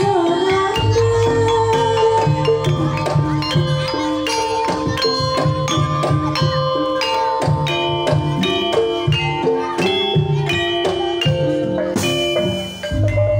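Banyumasan gamelan ensemble playing: mallet-struck keyed instruments ring out a busy melody over kendang hand-drum strokes and low sustained tones.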